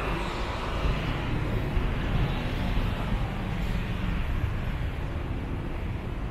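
Street traffic: vehicles passing with a steady low rumble, and a higher hiss that fades away over the first few seconds.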